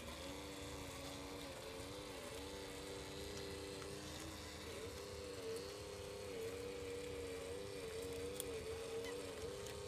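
Radio-controlled model truck giving off a steady pitched mechanical hum, its pitch dipping and rising every second or so and a little louder in the second half.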